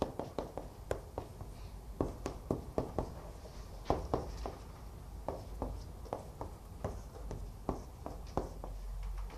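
Chalk writing on a chalkboard: an irregular run of short, sharp taps and scrapes as characters and arrows are drawn.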